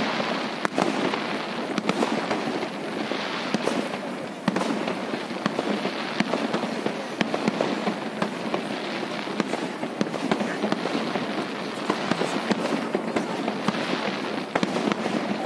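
Aerial fireworks going off in a dense, unbroken crackle of many sharp pops, from white crackling bursts.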